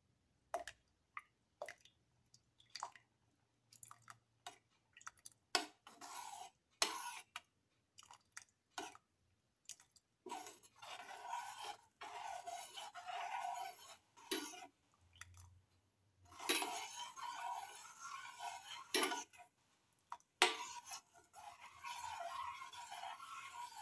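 Steel spoon stirring milk tea in a pan: scattered light clinks against the pan, then from about ten seconds in, longer stretches of scraping and swishing as it stirs.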